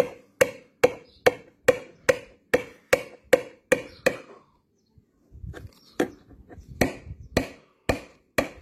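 Hammer blows knocking a part into a plastic Hot Wheels toy track: sharp, even taps about two and a half a second for some four seconds, then a pause of about a second and a few more slower, irregular taps.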